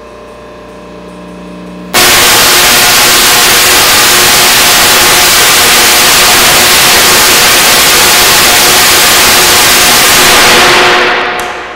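Rotary spark-gap Tesla coil (the bipolar Project Gemini coil) firing. A low hum gives way about two seconds in to a sudden, loud, harsh spark-discharge noise that runs steadily for about nine seconds and fades out near the end. The sound is the arcs striking the laptop and its grounded target.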